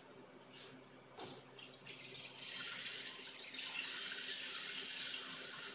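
A sharp knock a little over a second in, then a kitchen tap starts running into a frying pan held in the sink and keeps running steadily.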